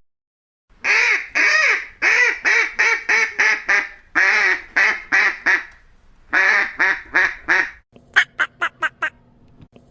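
Duck quacking in loud runs of rapid quacks, each run a few quacks a second. Near the end come shorter, sharper quacks, about five a second, over a faint steady hum.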